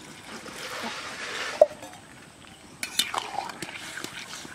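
Water poured into a metal wok of frying mixed vegetables, a soft hiss, followed by a single clink; from about three seconds in a metal ladle knocks and clinks against the wok while stirring.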